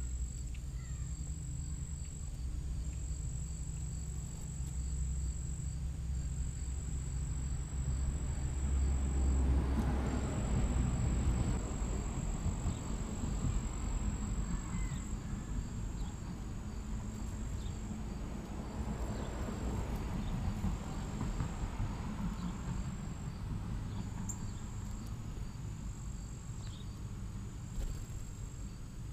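Outdoor ambience: a steady high insect trill with short regular breaks over a low steady hum. A broader rush swells twice, around ten and twenty seconds in.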